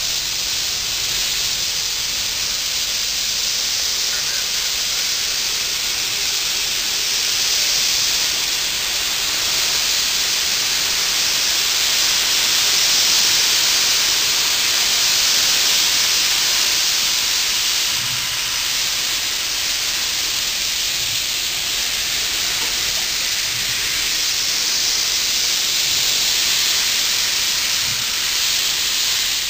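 Steady loud hiss of steam blowing from the open cylinder cocks of Southern Railway 630, a 2-8-0 steam locomotive, as it creeps forward. The hiss swells and eases every few seconds.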